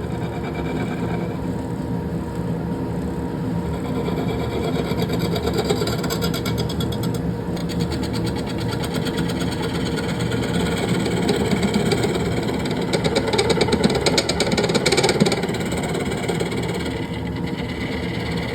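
Wood lathe running with a steady motor hum. Through the middle a rough scraping sound comes in, loudest a few seconds before the end, then fades back to the motor alone.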